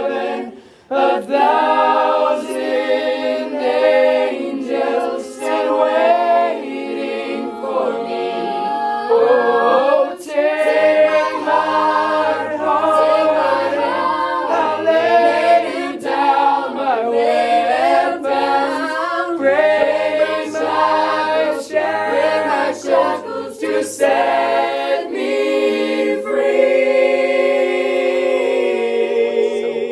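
Mixed-voice a cappella group of girls and boys singing in close harmony, with several parts moving together in chords. A low bass part comes in about a third of the way through and drops out after about 25 seconds. The group then holds a long sustained chord to the end.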